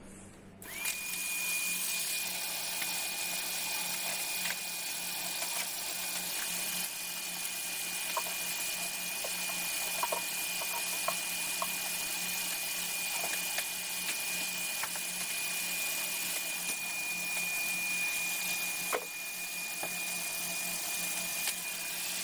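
Vacuum cleaner switched on about a second in and running steadily: a motor's high whine over a rushing air hiss, with a few light knocks as the nozzle moves over the floor.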